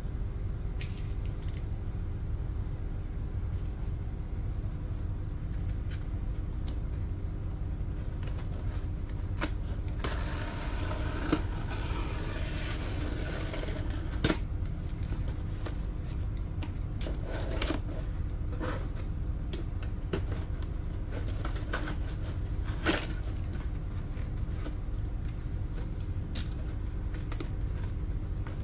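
Utility knife blade slicing through plastic packing tape on a cardboard box, with scratchy cutting noise for a few seconds about ten seconds in and scattered sharp clicks of the blade and hands against the cardboard. A steady low hum runs underneath.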